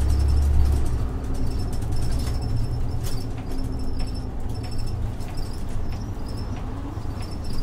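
Isuzu Erga city bus's 6HK1 diesel and Allison automatic heard from inside the cabin as the bus pulls in to a stop. The heavy low engine drone eases off about a second in and settles to a lower hum, with light high-pitched ticking throughout.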